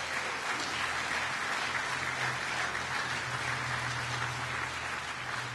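Audience applause, a steady clatter of many hands clapping that eases slightly near the end.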